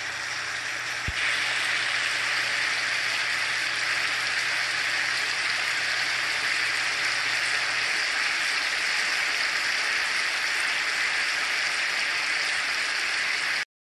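T-bone steaks sizzling steadily in garlic butter in a hot cast iron skillet. The sizzle grows louder after a faint click about a second in, then cuts off suddenly near the end.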